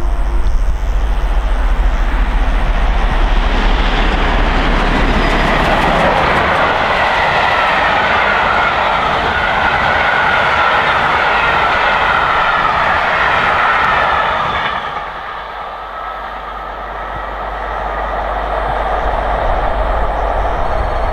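Peppercorn A1 Pacific steam locomotive Tornado and its train of coaches passing at speed: a loud, steady rush of engine and wheels on the rails that dies away about fifteen seconds in, leaving a low rumble.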